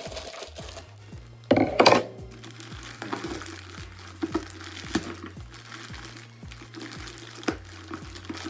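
Plastic mailer bag, heavily taped, crinkling and being torn at as it is pulled open by hand, with one loud rip about one and a half seconds in and small crackles after. Background music with a steady low beat plays underneath.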